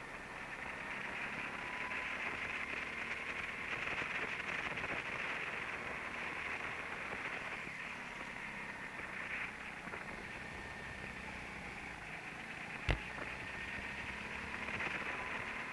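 Go-kart running at speed around a track, heard from an onboard camera as a steady hiss of motor and rushing air with a faint constant whine. A single sharp knock about thirteen seconds in.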